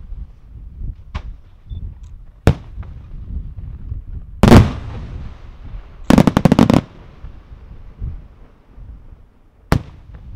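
Aerial firework shells bursting. Separate sharp bangs sound every few seconds, the loudest a heavy boom with a rumbling tail about four and a half seconds in, followed a little past six seconds by a quick string of about ten cracks.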